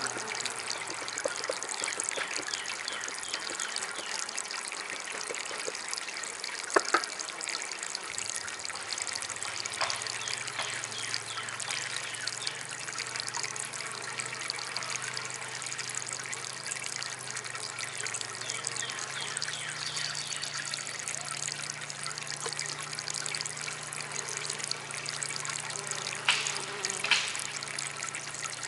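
Water trickling steadily from a small DIY water fountain, with a faint low steady hum underneath. A few short sharp clicks come about seven seconds in and again near the end.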